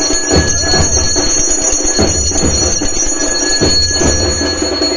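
A bell rings without pause in a steady high ringing that stops abruptly near the end, over irregular drum beats.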